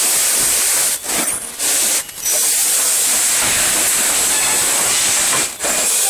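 Steady, loud hissing factory-floor noise from the running cup printing machines, dropping out briefly about one second in, again at two seconds, and once near the end.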